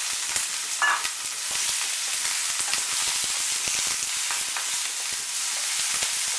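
Sliced star fruit sizzling in hot oil in a frying pan: a steady high hiss full of small crackles and pops as the slices are stirred with a wooden spatula. A short ringing clink sounds about a second in.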